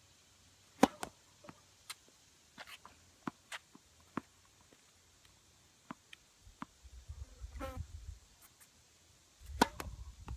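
Tennis ball sharply struck and bouncing: one loud knock about a second in and another near the end, with a scatter of lighter taps between. A low rumble rises twice in the second half.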